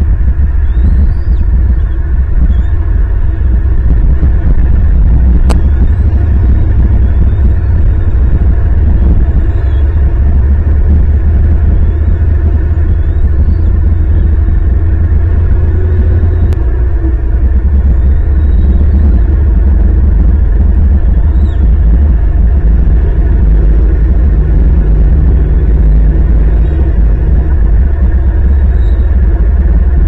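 A steady deep rumble fills the sound. Faint, thin chirps rise in pitch every second or two, typical of bald eaglet nestlings calling while being fed.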